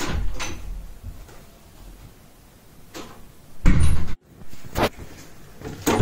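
Wooden room door being shut with a heavy thud a little before four seconds in, then short clicks of its lever handle and latch.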